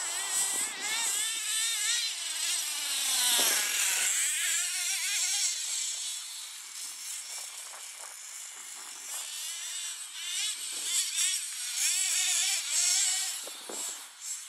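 Nitro engine of a Hot Bodies Lightning GTX2 RC car revving up and down as it drives across grass, its high pitch wavering constantly. The pitch drops about three seconds in, then climbs again, and the engine is loudest around four seconds in and near the end.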